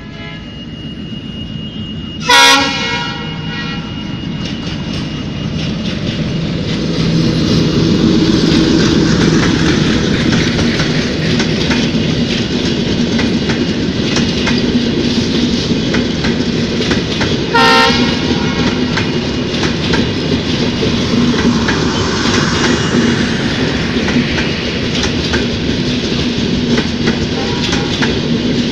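A passenger train running past close by, its wheels clattering steadily over the rail joints, the noise building over the first several seconds and then holding. A train horn gives two short, loud blasts, one about two seconds in and another about eighteen seconds in.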